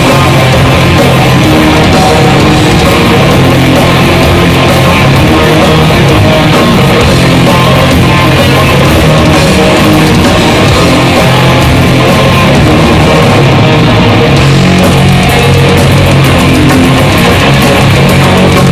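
Live thrash metal band playing loud: distorted electric guitar, bass guitar and drum kit at a steady, unbroken full volume.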